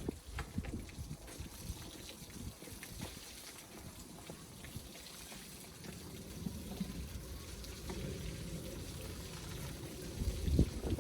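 Water trickling and splashing, with scattered small knocks.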